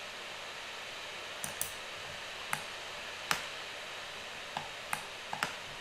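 Scattered clicks of a computer mouse and keyboard, about eight in all at irregular spacing, over a steady hiss.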